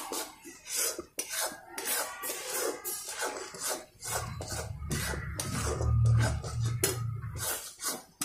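A spatula scraping and rasping against a kadhai in quick repeated strokes, stirring grated coconut and sugar as it roasts. A low hum joins about halfway through.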